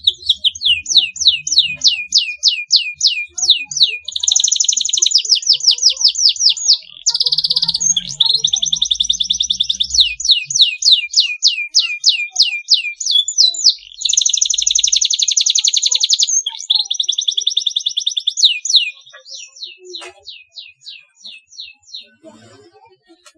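Domestic canary singing a long, unbroken song of quickly repeated downward-sweeping whistled notes and dense rolling trills, switching between tours every second or two. About 19 s in the song turns softer and sparser, and it stops near the end.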